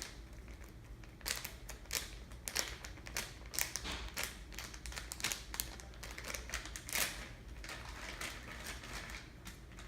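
Plastic squishy packaging crinkling and crackling as it is handled, in quick irregular crackles and clicks.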